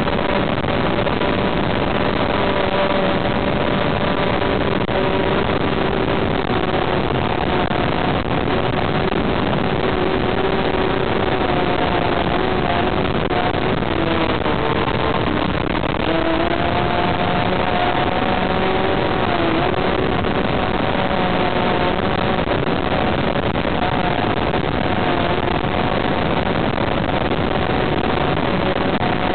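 Onboard recording from a radio-controlled model plane in flight: steady airflow rush over the camera with the motor and propeller's whine, which sags a little in pitch about halfway through and then recovers.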